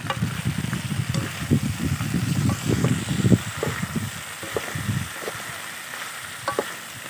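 Chicken wings, vegetables and sauce sizzling in a metal wok while a wooden spatula stirs and scrapes them. The stirring clatter eases off about five seconds in, leaving a quieter sizzle with a few clicks.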